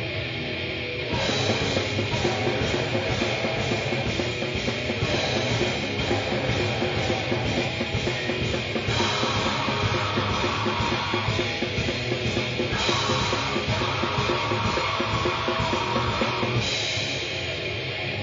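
Raw, lo-fi grindcore band recording: a distorted electric guitar riff, then drums and bass crash in about a second in, and the full band plays fast and noisy.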